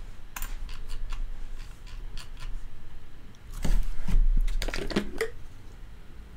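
Desk handling noises: scattered light clicks and rustles, then a louder stretch of rustling and knocking about halfway through as a drink bottle is picked up and raised to the mouth.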